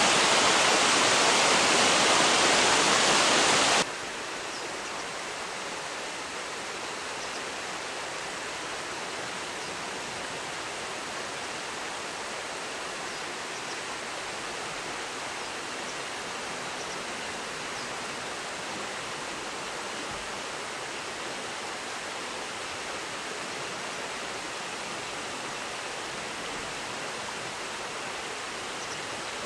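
Steady rushing of river water pouring over a step or small weir. It is louder for the first four seconds, then drops sharply and carries on quieter and even.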